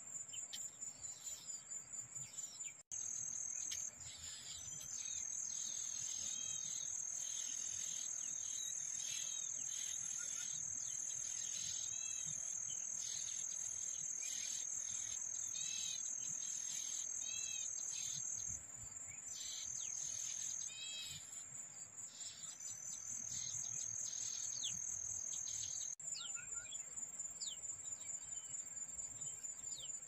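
Songbird nestlings giving rapid, high, repeated begging chirps as a parent feeds them, over a steady high-pitched insect drone. The chirping dies down near the end.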